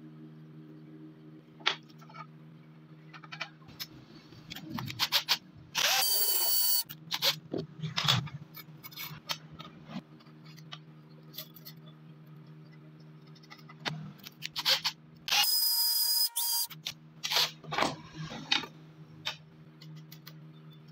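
Small clicks and taps of wooden and metal jig parts being handled and fitted together by hand, over a steady low hum. Twice, about six seconds in and again about fifteen seconds in, a loud burst of noise with a high whine lasts about a second.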